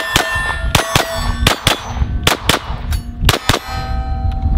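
Ruger LC Carbine firing 5.7×28mm rounds in a rapid string of about a dozen shots, with steel targets ringing at several different pitches after the hits. Low wind rumble on the microphone runs underneath.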